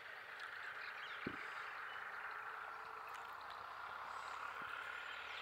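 Faint, steady background chorus of calling animals, with one short click about a second in.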